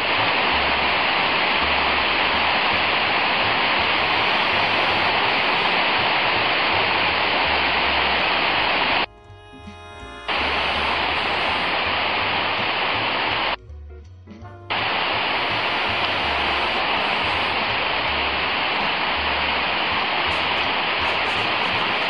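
Waterfall cascading over stepped rock ledges: a loud, steady rush of falling water. It cuts out briefly twice, about nine and thirteen and a half seconds in, leaving faint background music with a low bass line underneath.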